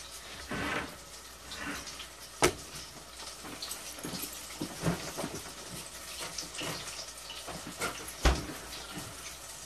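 Shrimp deep-frying in hot oil: a steady sizzle with constant small crackles. A few sharp knocks cut through it, the loudest about two and a half seconds in and another near the end.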